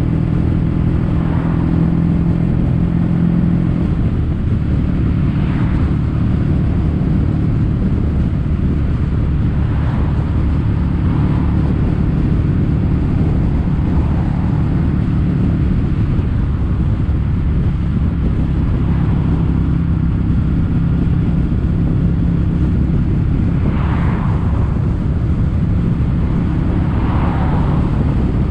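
Kawasaki W800's air-cooled parallel-twin engine running through stainless steel Caberton-style silencers while riding on the road, holding a fairly steady engine speed.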